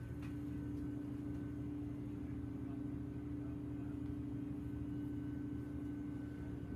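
A steady low buzzing hum over a deep rumble, which the uploader puts down to the building shaking and the pipes in the ceiling vibrating from weightlifting in a gym on another floor.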